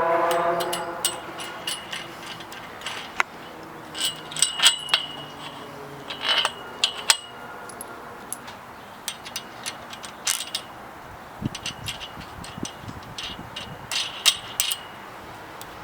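Metal hooks and hardware of a hammock stand clinking and rattling in irregular clusters of sharp clicks as the hammock is hooked on, with a brief pitched vocal sound at the start.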